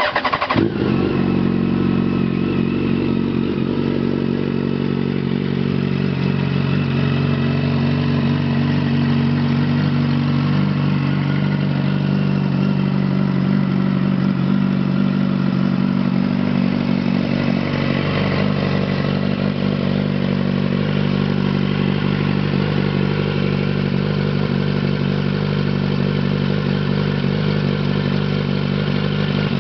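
Yamaha FZ1's inline-four engine through a Mivv aftermarket exhaust, starting up suddenly and then idling steadily.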